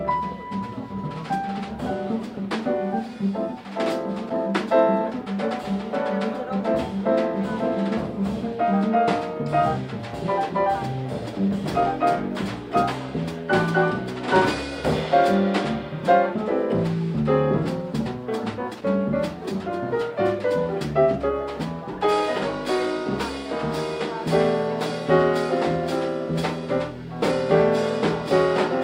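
Jazz piano trio playing live: grand piano, upright double bass and drum kit with cymbals, one steady piece of music.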